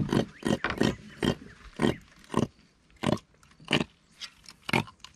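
A freshly landed fish grunting out of the water, a string of short grunts that come about one or two a second and space out as they go.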